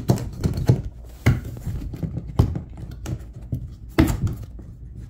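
Hard plastic knocks and clicks as a black plastic seat-riser bracket is handled and slid into place on a Lifetime Yukon kayak's molded plastic seat mount: a string of irregular taps, the sharpest about a second in, near the middle and about four seconds in.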